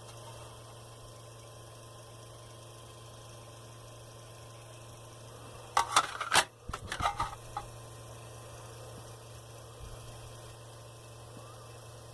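Steady low electrical hum, with a short cluster of sharp clicks and knocks about six seconds in.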